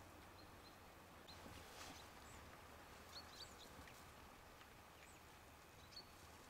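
Near silence: faint outdoor ambience with a low steady hum and a few faint, short high chirps scattered through it.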